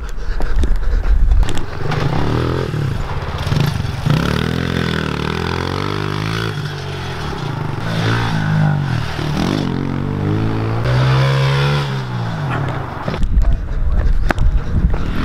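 Small pit bike engine revving up and down again and again as it is ridden around a dirt track with jumps, its pitch rising and falling with each burst of throttle. Rumble on the microphone near the start and again near the end.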